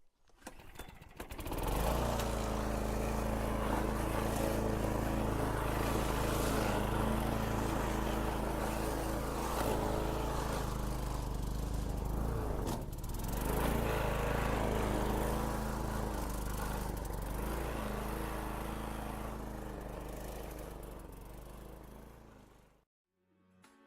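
Petrol lawn mower engine running at a steady pitch. It starts up in the first couple of seconds, dips briefly about halfway through, then fades and cuts off sharply near the end.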